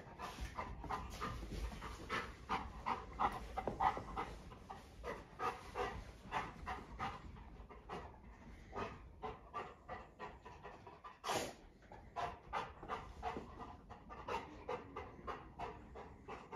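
Golden retriever panting steadily, about three quick breaths a second. One brief louder noise cuts in about eleven seconds in.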